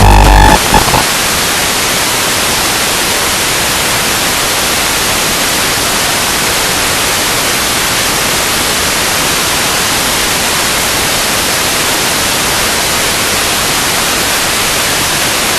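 Steady, even static hiss, the noise of an analog FPV video receiver's audio channel with no signal on it. A louder pitched sound cuts off within the first second.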